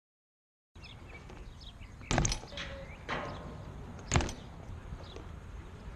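After a moment of silence, a steady background hiss with several sharp knocks that ring briefly: strong ones about two and four seconds in, a weaker one in between, and another starting right at the end.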